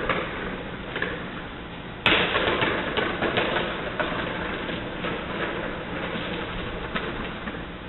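Footsteps crunching on a gravel floor, with a sudden loud scuffing noise about two seconds in that fades away slowly.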